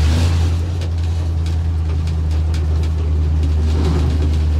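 1962 Ford C750 cabover truck's V8 engine running steadily under way, heard from inside the cab. Light intermittent knocking or grinding comes through over the engine, a grinding noise the driver can't account for.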